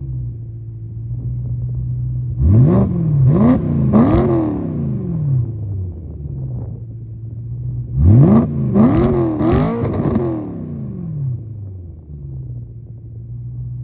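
BMW M3 E93's V8 idling and blipped through its valved exhaust: two sets of three quick revs, about two and a half and eight seconds in, each climbing and falling back to a steady idle.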